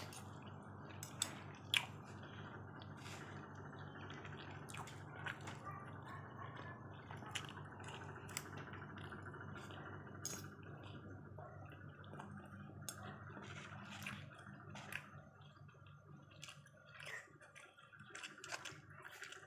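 Wet chewing and mouth sounds while eating rice, with irregular light clicks and scrapes of a metal spoon and fork against each other and a styrofoam food container, over a steady low hum.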